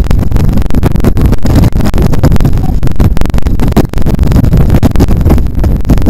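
Loud wind rush and buffeting on the microphone of a camera mounted on a road bicycle racing at about 26 mph, with constant rumbling gusts and quick flutters.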